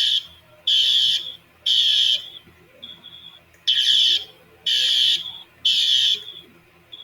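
School fire alarm system sounding its evacuation tone during a test: high, harsh pulses of about half a second each in the temporal-three pattern, three a second apart, a pause, then three more. This three-pulse tone is the evacuate signal that alternates with the recorded voice message.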